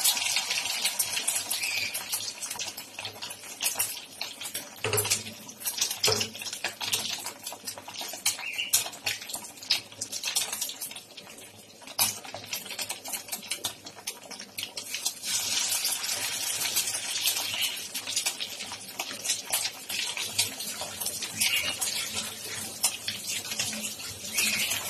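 Batter-coated custard cake pieces deep-frying in hot oil in a kadai: a steady crackling sizzle full of tiny pops, with a few sharper clicks.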